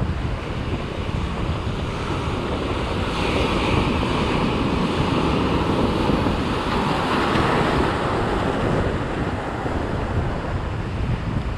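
Ocean surf breaking and washing around jetty rocks. A wave surges in about three seconds in and dies away near nine seconds, over a steady rumble of wind on the microphone.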